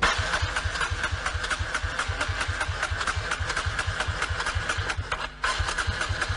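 Motorcycle engine being cranked on its electric starter, turning over at about seven pulses a second without catching; the cranking stops briefly about five seconds in and starts again.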